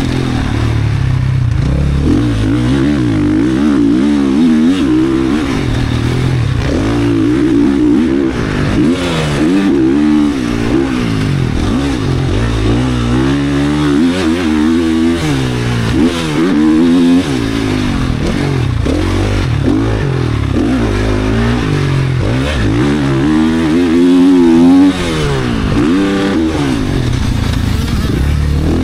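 GasGas 450 motocross bike's single-cylinder four-stroke race engine, built with a ported and polished head, a high-compression piston and a tuned ECU, revving hard under load. Its pitch climbs and falls again and again, every second or two.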